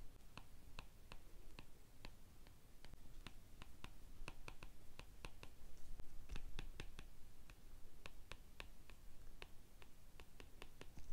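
Faint, irregular clicks and taps of a stylus tip on a drawing tablet as words are handwritten, several each second.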